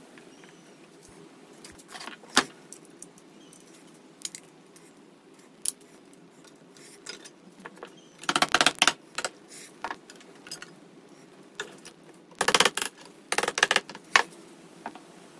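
Small hammer tapping on the cleaver clamped in a bench vise: a few single metallic clicks, then two quick flurries of light, sharp taps, about halfway through and again near the end.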